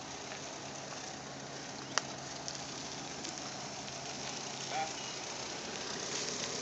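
Steady outdoor street noise with a faint low hum, broken by one sharp click about two seconds in and a brief chirp just before the five-second mark.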